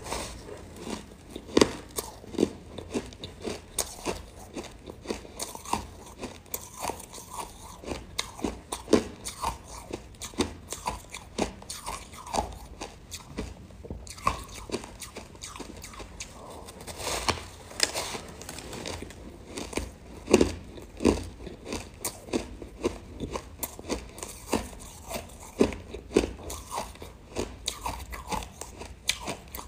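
Close-up crunching of a chunk of frozen buckwheat ice being bitten and chewed. Irregular sharp crunches come in quick clusters, several a second at times, with a few louder bites along the way.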